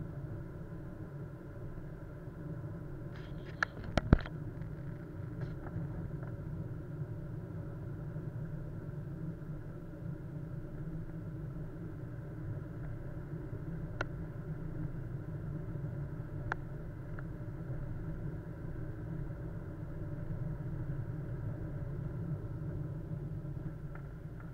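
A car driving, with a steady low engine and road rumble. A few sharp knocks come about four seconds in, the loudest moment, and single clicks follow later.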